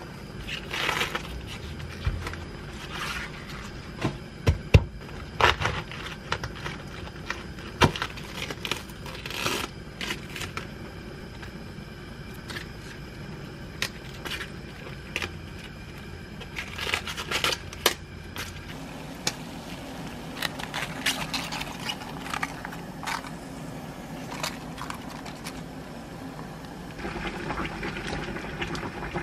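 Crisp crackling and snapping of cabbage leaves being torn off a whole head, with scattered clicks and knocks on a wooden cutting board. Near the end a steady hiss starts from a pot heating on a gas burner.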